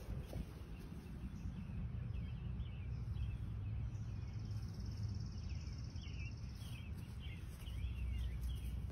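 Outdoor ambience: small birds chirping over and over, with a high, even trill for about three seconds in the middle, over a steady low rumble.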